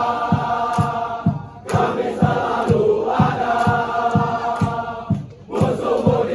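Crowd of football supporters chanting a song in unison over a steady beat of about two a second. The singing drops out briefly between lines, about a second and a half in and again near the end.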